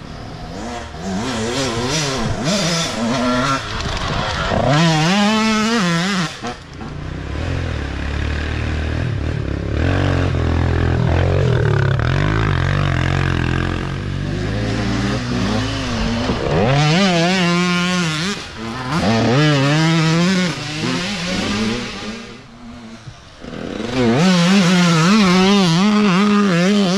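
Youth dirt bike engines revving up and down as riders work along the trail, the pitch rising and falling with the throttle many times over. A deeper, steadier engine note fills the middle stretch, and the revving picks up strongly again near the end.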